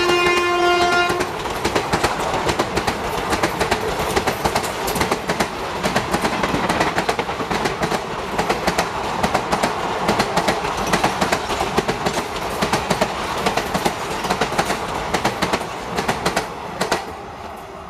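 Express passenger train's coaches running past at speed, wheels clattering over rail joints in a fast, steady rhythm, with a short locomotive horn blast in the first second. The clatter drops away sharply near the end.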